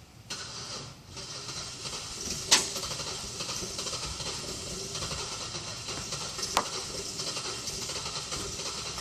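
A Buick engine on a hard start, turning over. A short burst breaks off about a second in, then a steady, pulsing run goes on, with two sharp cracks, one about two and a half seconds in and one later.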